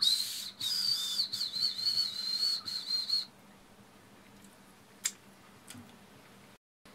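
Whistling candy blown like a whistle, giving a high, breathy whistle that wavers a little in pitch for about three seconds and then stops. A single sharp click follows a couple of seconds later.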